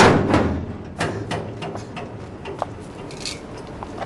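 Metal gate being opened: a loud clatter at the start, then scattered clicks and knocks.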